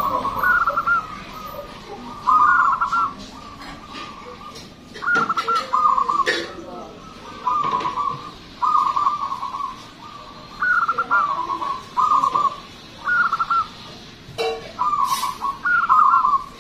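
Zebra dove (perkutut) cooing: a string of short, rolling coo phrases, each under a second long, repeated every second or two.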